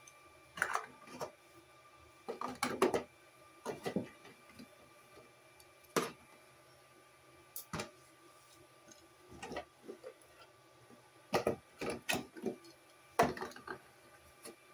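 Scattered plastic knocks, clicks and scrapes as hands reach into a clear plastic Beyblade stadium and pick up the spinning tops' stopped Beyblades, in irregular clusters a few seconds apart.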